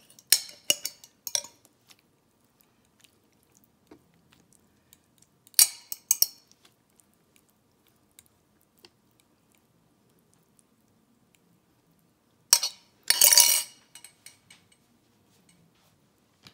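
Kitchenware clinking and knocking: a utensil and container tapping against a skillet in a few short groups, with the loudest knocks and a brief scrape near the end.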